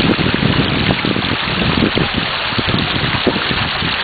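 Creek water rushing steadily over rock shallows, with wind buffeting the microphone in uneven gusts.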